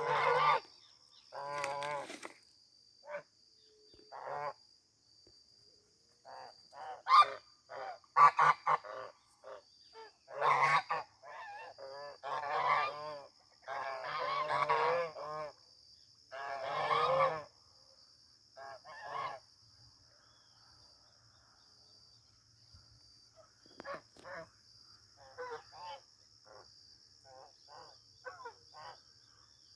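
Birds calling loudly in a long series of harsh, pitched calls, each lasting up to about a second, over a steady high-pitched whine. About two-thirds of the way through, the calls give way to shorter, fainter ones.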